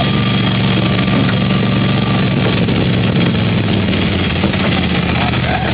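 Engine of a miniature kiddie train running steadily under way, heard close up from a seat aboard the train.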